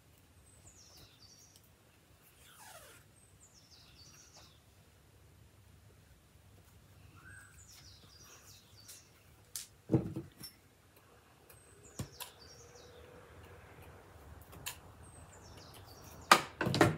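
Hand sewing: needle and thread drawn through fabric, giving faint short pulls every second or two. A sharp knock of handling comes about ten seconds in, and two more come near the end.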